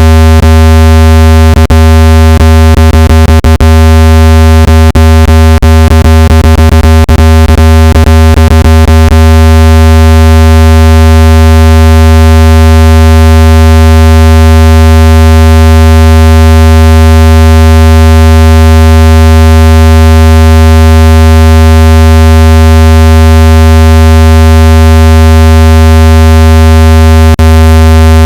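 Loud, steady low-pitched electronic tone with many overtones, a water-eject tone played to vibrate water out of a phone speaker. A burst of brief clicks crackles through it a couple of seconds in, and one more comes near the end.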